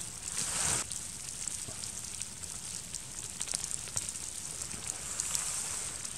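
Rustling of sleeping-bag and jacket fabric as a person rolls over about half a second in, then faint scattered ticks and crackles over a steady hiss.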